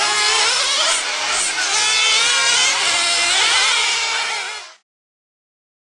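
Several small, high-revving nitro engines of radio-controlled race cars running on track, their pitches rising and falling and overlapping as the cars accelerate and brake. The sound cuts off suddenly near the end.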